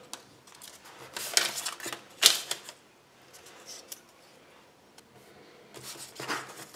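Small plastic parts of a Kinder Surprise writing toy and paper being handled: a scatter of light clicks and rustles, the sharpest click about two seconds in, with more rustling near the end.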